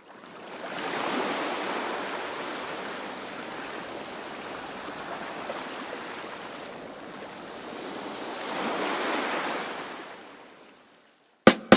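Ocean surf washing in, swelling twice and then fading out, with sharp clicks as music begins at the very end.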